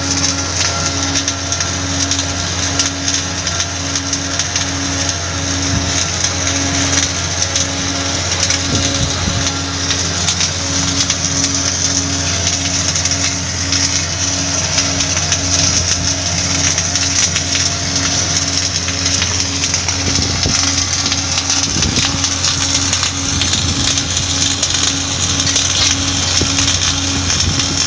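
Automatic pipe-welding machine at work on a large-diameter butt joint: the arc crackles and hisses steadily over a low hum, with a low tone pulsing evenly somewhat less than twice a second.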